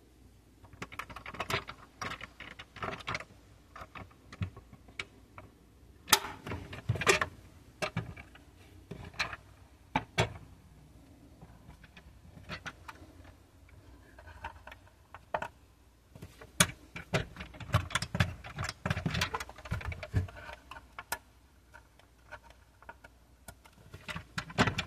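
Handling noises from a 1/24 scale Nissan Skyline R34 model car: scattered small clicks and knocks as its parts are worked and the model is picked up and tilted in the hand.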